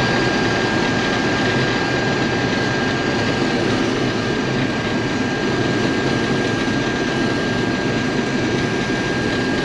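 Combine harvester running steadily while cutting wheat, a constant mechanical drone with a thin, steady high whine over it.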